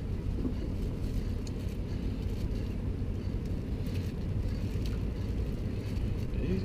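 Boat engine idling: a steady low rumble, with a few faint clicks over it.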